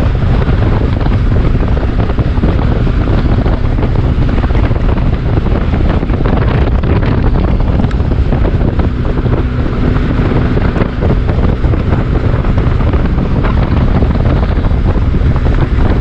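Heavy, steady wind buffeting the microphone of a motorcycle at highway speed, with the Benelli TRK 502X's parallel-twin engine humming faintly underneath.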